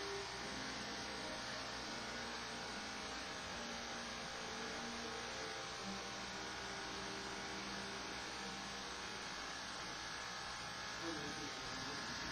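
Corded electric hair clippers running with a steady hum as they cut a man's hair short.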